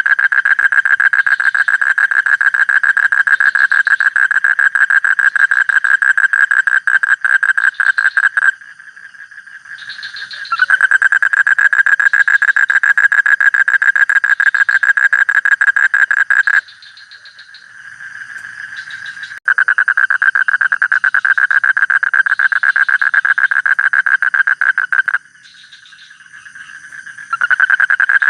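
Frog calling in long, fast pulsing trills of several seconds each, with short pauses between them; fainter calling continues in the gaps.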